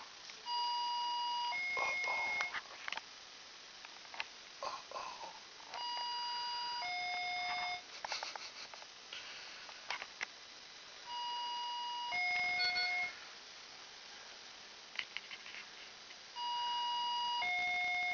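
Electronic hi-lo police siren tone: a high beep and then a lower beep, about a second each. The pair repeats four times, roughly every five seconds, with small clicks and rustles in the gaps.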